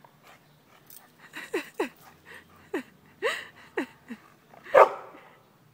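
Siberian husky whining and yipping excitedly at a squirrel up a tree: a string of about six short calls, each dropping in pitch, then one louder bark near the end.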